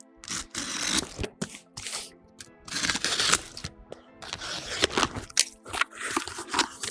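Utility knife slitting the packing tape on a cardboard box in several short strokes, then the cardboard flaps pulled open, over soft background music.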